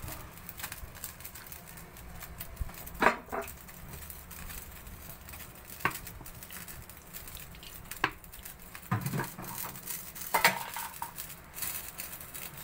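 Kitchen utensils and a cooking pan clinking and knocking now and then, about half a dozen short separate knocks spread over several seconds, over a faint steady hiss.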